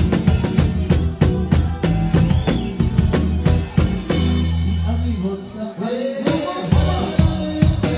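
Live band playing: a drum kit keeps a fast, dense beat under electric guitar. A little past halfway the beat thins out for about two seconds over a held low note, then the drums come back in full.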